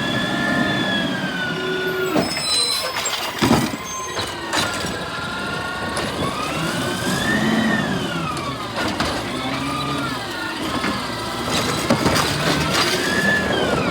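Garbage truck running, its whine rising and falling in pitch several times, with a few sharp clanks in between.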